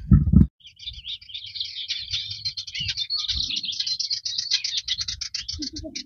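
Small songbirds singing, a dense run of rapid high chirps and twitters that starts about a second in and keeps going. A brief low thump comes at the very start.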